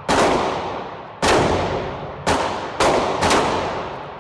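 Ruger LCR revolver fired five times, first about a second apart and then in quicker succession, with another shot just at the end. Each shot is a sharp crack followed by a long, echoing decay in the indoor range.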